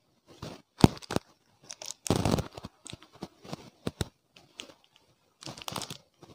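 Plastic chocolate-bar wrappers being handled and crinkled: irregular rustling with sharp crackles, and a longer, louder rustle about two seconds in.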